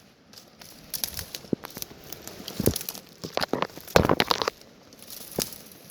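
Irregular crunching and crackling of footsteps through snow and brush, coming in uneven clusters, loudest about three to four and a half seconds in.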